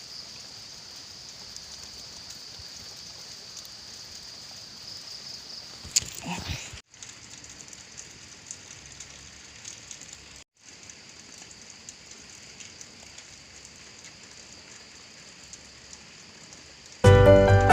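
Steady storm rain falling: an even hiss, with a brief louder patch about six seconds in, and two short breaks where the sound drops out.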